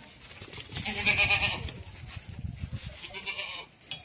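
Goats bleating on a goat farm: one call about a second in and a shorter one near three seconds, with low rustling in between.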